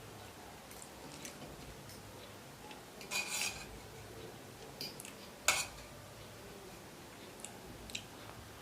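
Cutlery on a plate of food: a short scrape about three seconds in, then one sharp clink a couple of seconds later, with a few light ticks in between.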